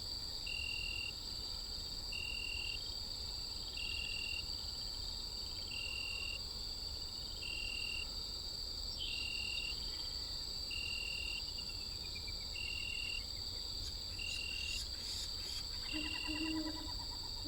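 Insect chorus: a steady high-pitched trill with a short chirp repeating about every second and a half to two seconds. A few faint bird-like calls come in near the end.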